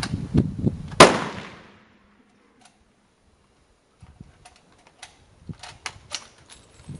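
A single military bolt-action rifle shot about a second in, echoing under the covered firing line and dying away, followed by a few faint clicks and knocks.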